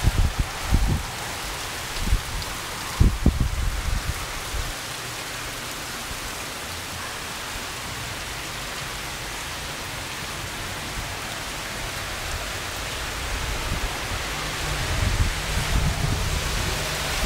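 Steady rain falling, an even hiss. Low rumbling bumps on the microphone come in the first four seconds and again near the end.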